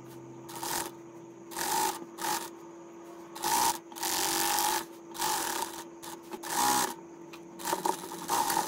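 Sewing machine stitching a seam in a series of short bursts, each under a second, stopping and starting about eight times. A faint steady hum sounds between the bursts.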